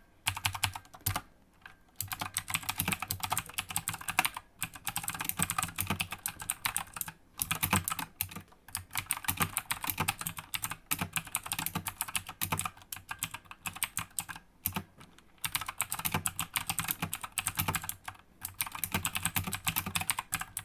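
Typing on a Tomoko mechanical keyboard with clicky blue switches: a rapid stream of key clicks in bursts, broken by short pauses.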